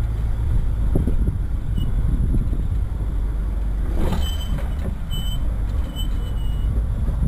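Off-road vehicle's engine running at low revs as it crawls up a steep rock ledge. Several short high squeaks sound in the second half.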